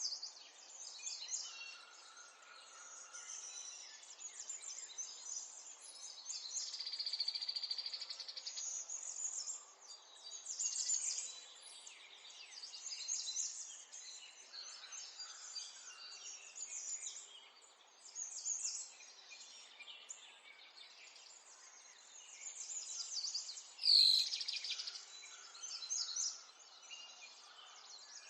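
Many small songbirds chirping and trilling at once, overlapping high calls over a faint outdoor background. Near the end there is one sharp, loud click.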